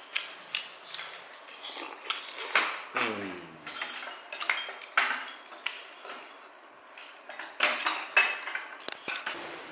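Spoons and chopsticks clinking and knocking against bowls and dishes during a meal, with many irregular short clinks.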